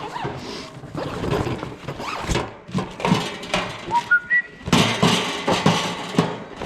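A bag and packaging being rummaged through and handled: crinkling and rustling with scattered clicks and knocks. About four seconds in come three short whistle-like notes, each higher than the one before.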